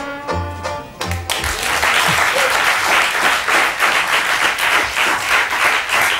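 A studio audience applauding, after a piece of music ends about a second in.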